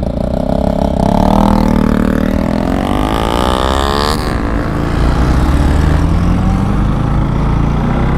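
Bajaj Pulsar NS200's single-cylinder engine accelerating under way, its pitch rising for about three seconds, then dropping suddenly at a gear change about four seconds in, followed by steady running at speed.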